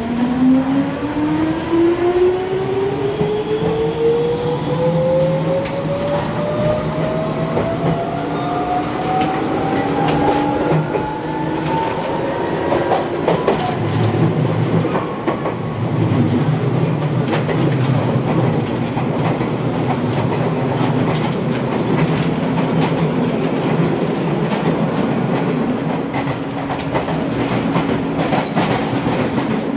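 In-car running sound of a Jōmō Electric Railway train, an ex-Keio Inokashira Line electric car. The traction motors whine, rising steadily in pitch as the train accelerates over the first dozen seconds, then the whine fades and the car runs steadily with the wheels clacking over rail joints.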